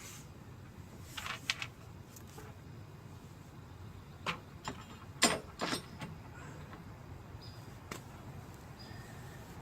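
Scattered sharp clicks and knocks of metal hardware and tools being handled during a running board install, about half a dozen in all, the loudest a little past five seconds in, over a low steady hum.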